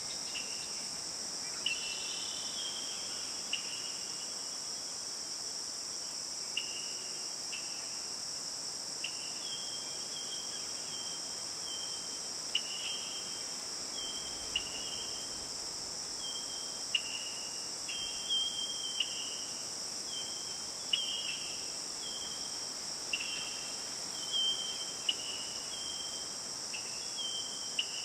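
Steady high-pitched insect chorus, with short high chirps repeating roughly once a second over it.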